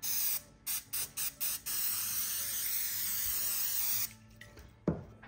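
PAM cooking spray hissing out of its aerosol can onto a wire grill screen: a run of short spurts, then one long steady spray of about two seconds that cuts off suddenly. A short knock follows near the end.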